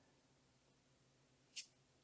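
Near silence, with one faint, brief rustle about one and a half seconds in.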